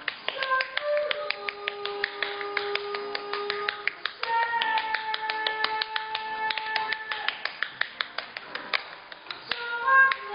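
Tap dancing: shoe taps rapping out quick, uneven rhythms on a wooden stage floor, over blues music with long held notes.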